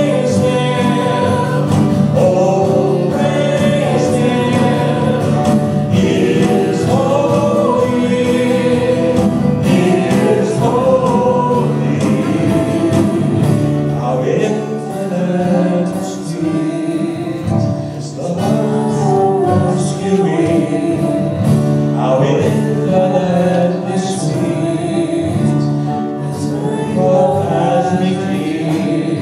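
Live worship song: several voices singing together over acoustic guitar.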